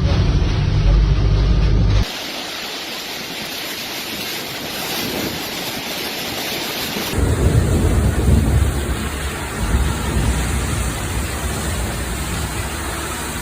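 Severe thunderstorm: heavy rain and strong wind across several cuts of footage. A low rumble gives way about two seconds in to a steady hiss of rain, and about seven seconds in to rain with wind gusting hard on the microphone.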